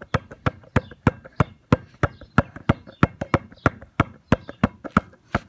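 Basketball being dribbled, bouncing in a steady rhythm of about three bounces a second, stopping near the end.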